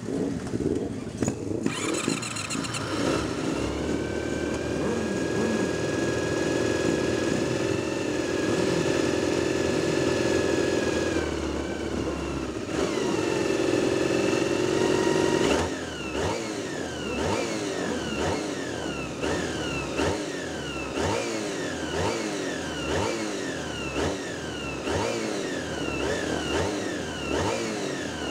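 Racing motorcycle engines running on a starting grid: through the first half, revs held up steady for several seconds at a time, dropping back just past halfway. After that, repeated short throttle blips, the pitch rising each time, about once a second.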